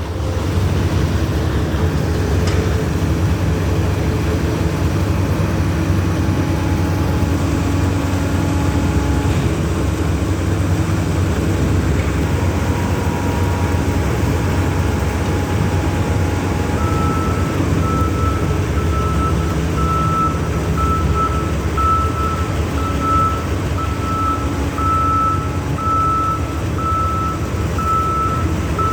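Heavy vehicle engine running steadily. A little over halfway through, a reversing alarm starts beeping, about once a second.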